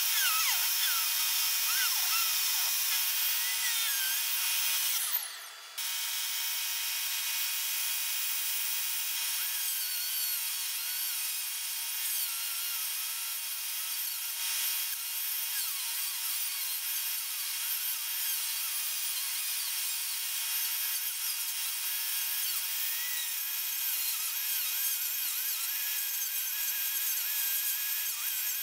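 Handheld rotary tool with a cutting wheel grinding through plywood, a high whine whose pitch wavers as it bites. It breaks off briefly about five seconds in, then carries on.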